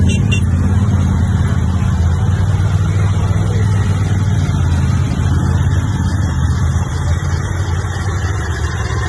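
Low, steady engine rumble of parade vehicles passing along the street, among them a side-by-side UTV, easing off slightly toward the end.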